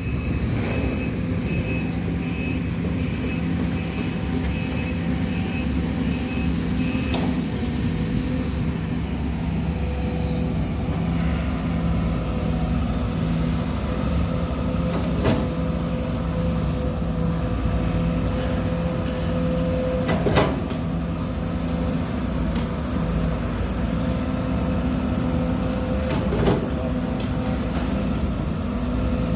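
Excavator diesel engine running steadily, with a few short knocks, about a third, two thirds and nine tenths of the way through.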